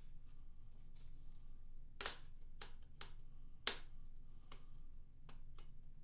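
Trading cards and packs being handled: a series of sharp snaps and clicks as cards are flicked and shuffled, over a steady low hum.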